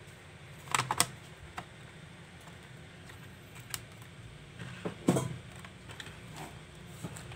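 Scattered small clicks and taps of hard plastic and metal as laptop parts are handled during an SSD install: a quick run of three or four clicks about a second in, the loudest cluster about five seconds in, and a few single ticks between.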